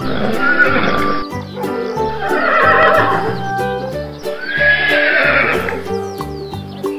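Recorded horse whinnies, three in turn, each a shaky call that bends in pitch, played over background music with a steady beat.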